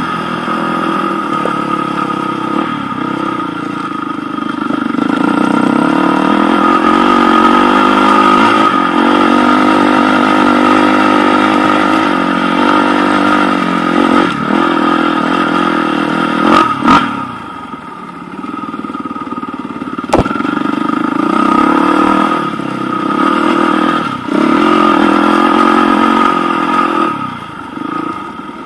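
KTM enduro motorcycle's single-cylinder engine running on a gravel track, revving up and easing off as the throttle opens and closes. It drops off briefly twice, and there are two sharp knocks around the middle.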